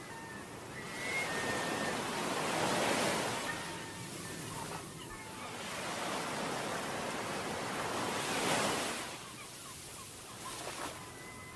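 Ocean waves washing onto a beach: a steady surf hiss that swells and falls back twice, with the biggest surges about five seconds apart.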